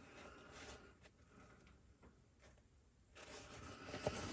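Faint rustling and scraping of tools being handled in and around a fabric tool bag, growing a little louder about three seconds in, with a couple of light clicks near the end.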